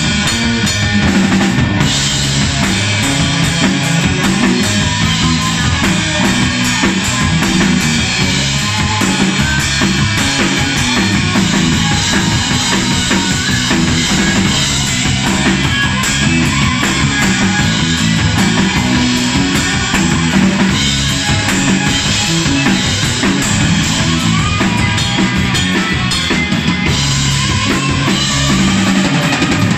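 Live heavy rock band playing loud, with the drum kit to the fore over electric guitar.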